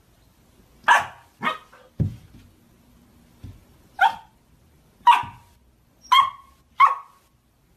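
A puppy yapping at its own reflection in a mirror: six short, high-pitched barks, two in quick succession near the start and four spaced about a second apart later on. A dull thump comes about two seconds in.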